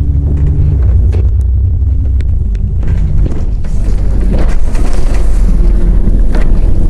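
An Alexander Dennis Enviro 400 double-decker bus running, heard from on board: a deep, steady engine rumble with a few light clicks and rattles, growing louder about halfway through.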